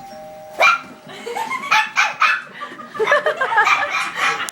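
A brief chime sounds at the start, and about half a second later a young puppy breaks into repeated barking at it, treating the TV doorbell as the real one. People laugh over the barks.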